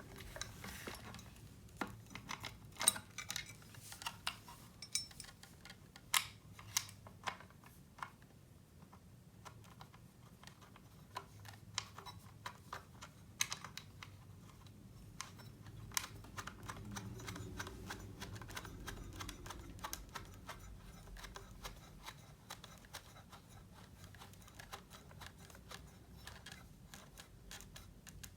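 Irregular small clicks and taps of hard parts being handled while a soldering iron stand is assembled with a pad and a screw.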